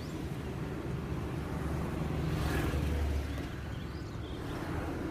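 Roadside traffic noise: a steady low rumble of passing vehicles that swells past the middle as one goes by.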